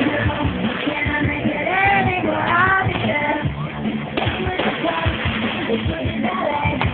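Rock/pop music with a singing voice over a steady drum beat.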